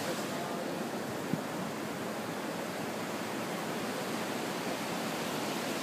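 Steady wash of ocean surf breaking on a sandy beach, with one brief tap about a second and a half in.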